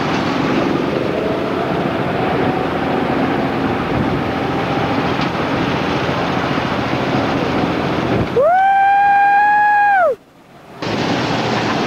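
Go-kart engines running in a steady drone. About eight seconds in, a loud steady tone lasting about two seconds slides up at the start and down at the end, then cuts off abruptly.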